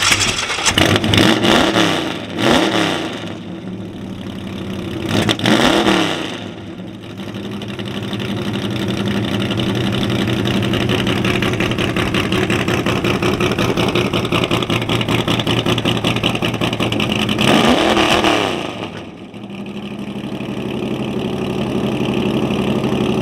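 A car engine idling, blipped up and back down four times: three quick revs in the first six seconds and one more about eighteen seconds in, with a steady idle between.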